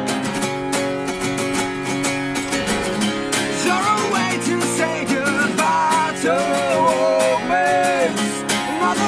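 Two acoustic guitars strummed together in an unplugged punk rock song; about four seconds in, a voice joins in singing a melody over the chords.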